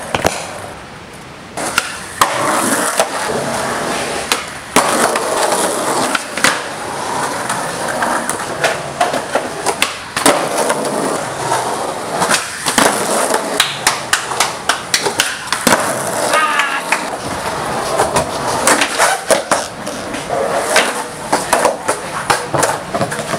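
Skateboard wheels rolling over rough concrete, with repeated sharp clacks of the board popping and landing.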